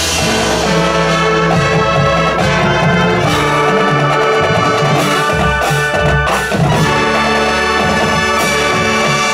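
High school marching band playing: the brass section holds loud sustained chords, with a few heavy drum strokes a little past halfway.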